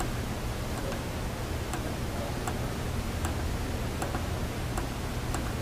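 Faint, evenly spaced clicks, about one every three-quarters of a second, over a steady low hum.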